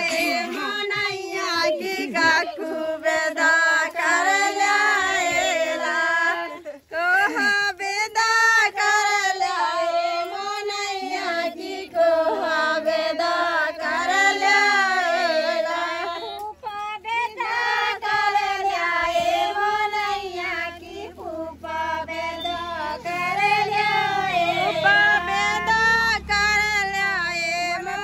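A group of women singing a Bundeli folk wedding song together in one continuous melodic chorus.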